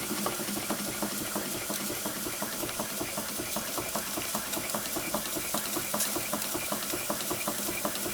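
About 115-year-old Bing twin oscillating-cylinder steam engine running steadily under steam: a rapid, even clicking of the cylinders and valves over a hiss of steam.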